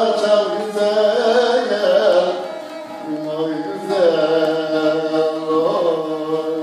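Bağlama strummed with a plectrum, playing a Turkish folk tune, with a man's voice singing over it in two phrases, the second beginning about four seconds in.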